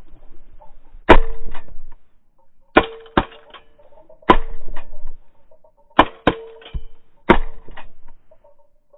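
A string of shotgun shots, seven sharp reports in all, some fired as quick doubles a third of a second apart, each trailing off in a short echo. The first, about a second in, is the loudest.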